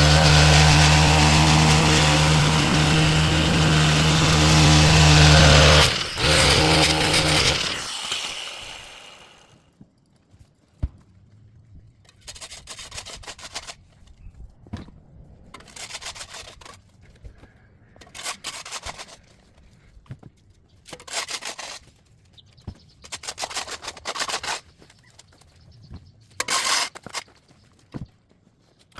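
A small engine running steadily, then cutting off about six to eight seconds in. After it, short scraping and rubbing sounds come at irregular intervals, each lasting under a second.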